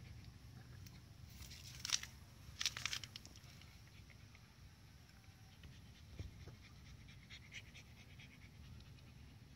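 Siberian husky puppy panting quietly, with two brief louder breathy bursts about two and three seconds in.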